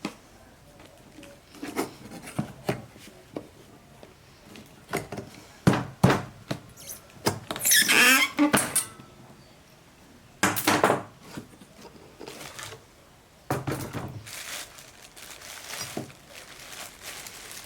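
A lathe chuck's packaging being handled and opened: scattered knocks and scrapes, with a longer squeaky scrape about eight seconds in.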